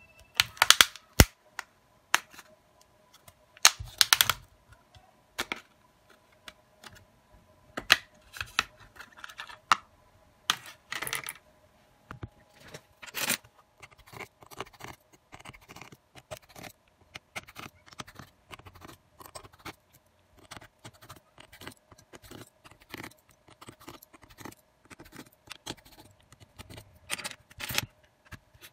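Irregular clicks, snaps and scrapes of a Samsung Galaxy A02s's plastic back cover and midframe being pried apart by hand and handled on a rubber work mat. The sharpest clicks come in the first few seconds, over a faint steady hum.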